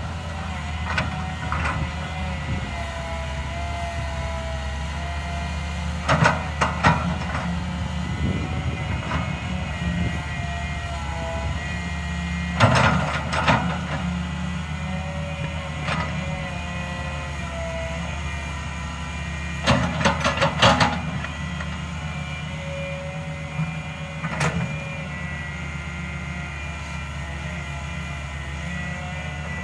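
Daewoo 130W-V wheeled excavator's diesel engine running steadily under working load, with a wavering higher tone over it. Four clusters of sharp knocks and scrapes come as the bucket digs into the soil.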